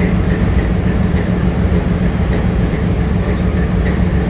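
Train running at a station: a steady, loud low rumble with faint regular ticking above it.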